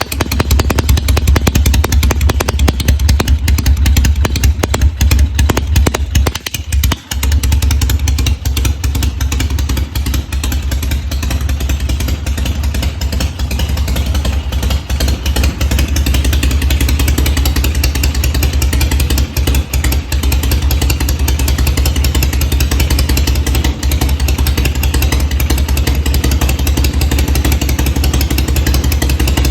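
Harley-Davidson V-twin fitted with aftermarket Smicey silencers, idling with a deep, low three-beat rhythm. The sound drops briefly about seven seconds in, then settles into a steady idle.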